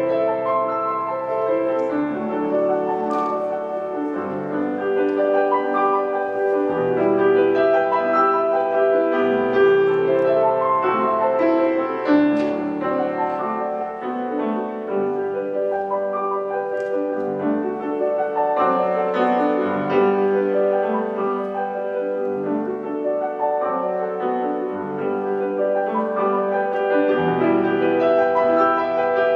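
Background music: a slow classical-style piano piece.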